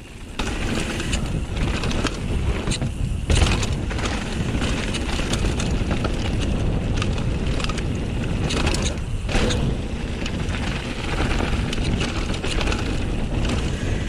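Vitus Dominer downhill mountain bike rolling fast down a dry dirt trail: a steady rush of wind on the microphone over tyre rumble and rattling from the bike, with a few sharp clunks over bumps, the loudest about three seconds in.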